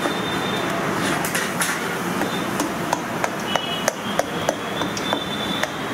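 Steady kitchen background noise with scattered sharp knocks and clinks, several a second in places, and a faint high whine.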